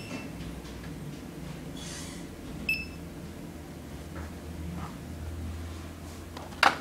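Hasar USB barcode scanner giving two short, high beeps about three seconds apart, the good-read signal that a barcode was scanned. A sharp knock just before the end is the loudest sound, over a steady low hum.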